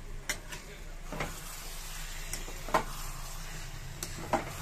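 Thick bitter gourd and chana dal curry sizzling steadily in a metal kadai, with a spatula stirring it and scraping the pan a few times.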